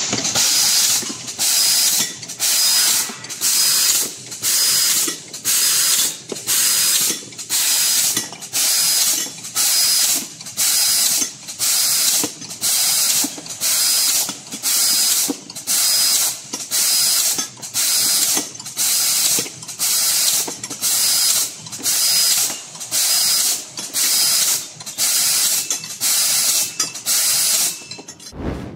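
Fiber laser tube cutting machine cutting a 20×1 mm stainless steel round tube piece after piece: a hiss of assist gas at the cutting head switching on and off in a steady rhythm, about three cuts every two seconds, with faint mechanical clicks from the chuck and feed between cuts.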